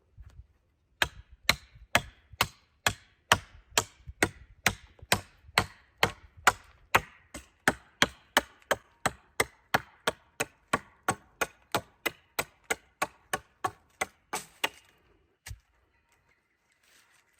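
Wood being chopped with a hand tool: steady, evenly spaced blows about two a second, ending with a last single blow about fifteen seconds in.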